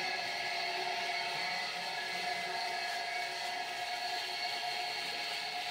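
Electric water pump running steadily, draining water that had collected in a pit. A constant motor whine sounds over the rush of water pouring from the discharge hose.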